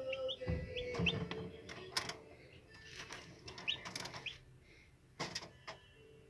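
Day-old Brahma chicks giving a few short, rising peeps among sharp knocks and clicks of handling.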